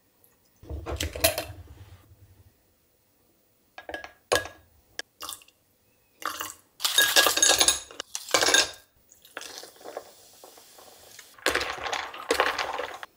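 A drink being mixed in a glass tumbler: liquid poured into the glass, then a run of clinks and rattles of a spoon and ice against the glass, and water poured over the ice.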